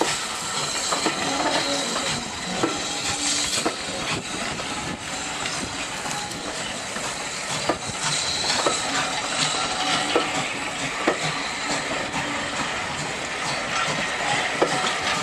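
Passenger coaches of a train hauled by SECR C Class 0-6-0 steam locomotive No. 592 rolling past slowly, their wheels clicking irregularly over rail joints and pointwork, with a faint steam hiss from the engine pulling away ahead.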